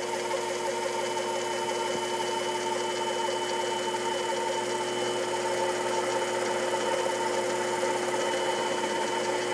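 Sherline mini lathe running with a 3/8-inch split-point drill bit cutting into the end of a metal bar: a steady whine with a few constant tones over the cutting noise. The bit went in without a starter hole and has wandered off centre, so it is shaking in the hole.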